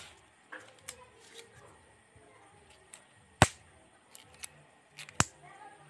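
A disposable glove being tugged and adjusted on the fingers: faint rustles and sharp snaps of the thin glove material, with two louder clicks nearly two seconds apart in the second half.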